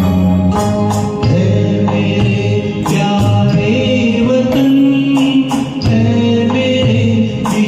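Music: a song with instrumental accompaniment and repeated percussion strokes, with singing.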